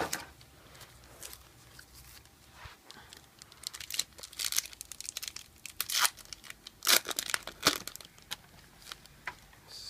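Yu-Gi-Oh booster pack's foil wrapper being torn open and crinkled by hand: irregular rips and crackles, busier and louder from about four seconds in.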